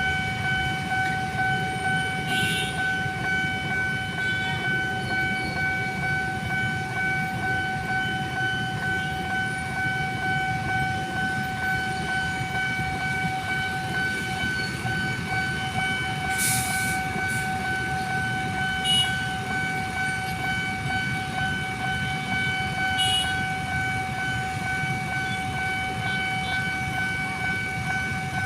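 A single steady high warning tone held unbroken, over the low rumble of a passing train, with a few faint clicks.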